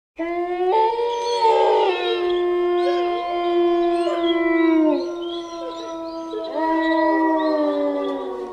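Wolves howling, several long, steady-pitched howls overlapping. The sound starts suddenly right at the start, one howl falls away about five seconds in, and another rises and slowly sinks toward the end.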